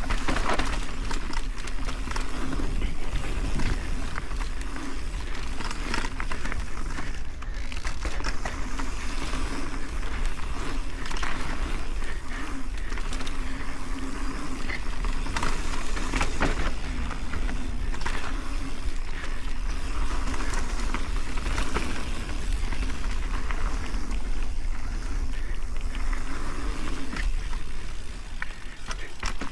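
Mountain bike riding fast down a dirt trail: steady tyre and rushing noise, with frequent sharp rattles and knocks from the bike over roots and bumps.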